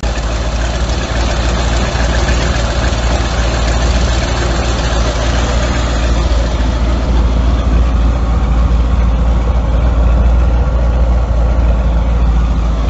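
Jet boat's 454 big-block V8 idling steadily.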